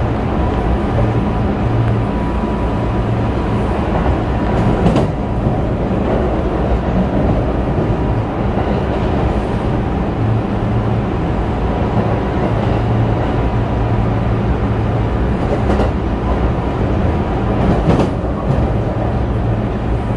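Running sound heard inside a Kintetsu 7000-series electric train car with a Mitsubishi IGBT-VVVF inverter: a loud, steady rumble of wheels and drive gear on the track with a faint steady high tone. Two sharp knocks come through, about five seconds in and near the end.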